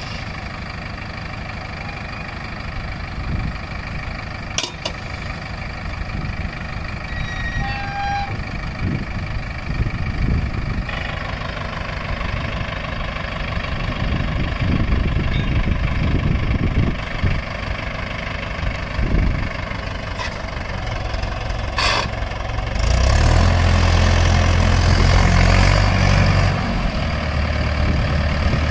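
Heavy diesel engine running steadily. About three-quarters of the way through it grows louder and deeper, then eases a little near the end.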